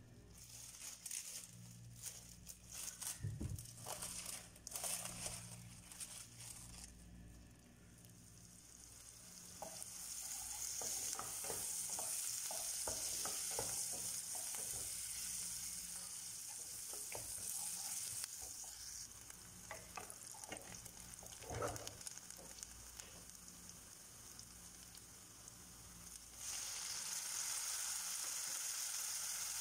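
Scattered clicks and knocks at first, then diced red onion sizzling in hot oil in a pan while a wooden spoon stirs and scrapes it. Near the end the sizzle jumps louder as chopped tomatoes go into the pan.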